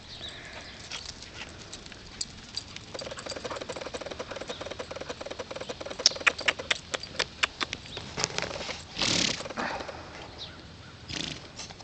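Foal grazing: a quick run of crisp rips and clicks as it crops and chews grass, with a short rushing noise about nine seconds in.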